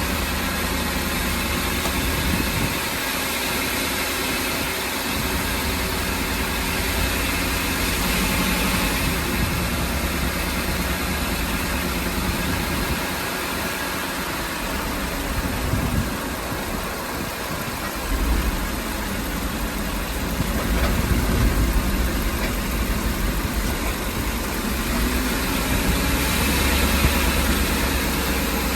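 Ford E-350's engine idling steadily, with a low rumble that fades and returns unevenly. The engine shakes without setting a misfire code.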